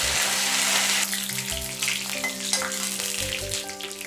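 Curry leaves and dried red chillies sizzling and spluttering in hot coconut oil in a metal kadai. A dense hiss in the first second settles into scattered pops and crackles.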